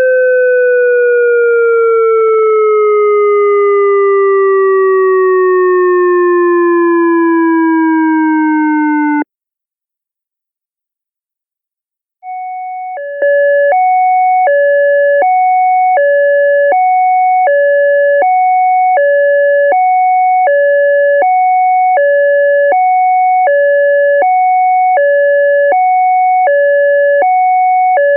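ASC digital electronic siren controller synth. Its 'Attack' siren signal glides slowly down in pitch with a slight warble and cuts off suddenly about nine seconds in. After about three seconds of silence, the 'Hi/Lo' signal starts: two steady tones alternating high-low about twice a second.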